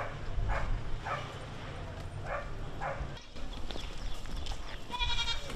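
A dog barking several times, the barks coming in pairs about half a second apart. Near the end there is one short high call.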